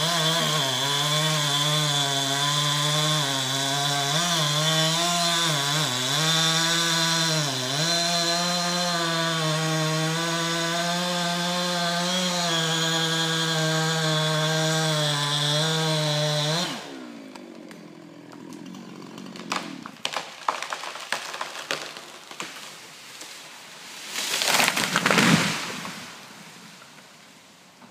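Chainsaw running at high revs and cutting, its pitch dipping a few times under load, then cutting off abruptly about two-thirds of the way in. A series of sharp cracks follows, then a loud crash near the end as the felled tree comes down.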